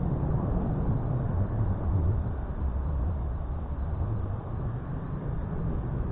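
Steady low rumbling noise with no distinct tones or knocks.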